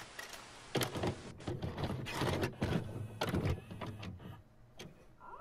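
VCR tape mechanism: a cassette being loaded and engaged, a string of irregular clunks and clicks with mechanical whirring, dying down near the end.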